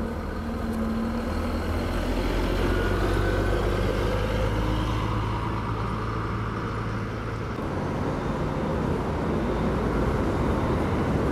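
Diesel engine of a Marcopolo coach on a Scania chassis driving slowly past and away, a steady low drone. About three quarters of the way in the drone changes as a second coach comes in.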